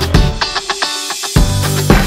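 Background music with a steady beat. In the middle the bass and drums drop out for about a second, leaving only higher notes, then come back in.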